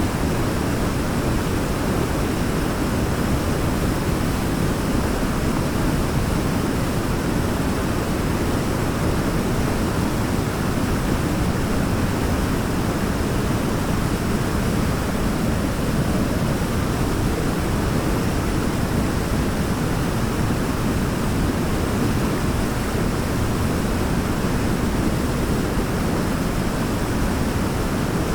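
Waterfall: a steady, even rush of falling water, heaviest in the low range.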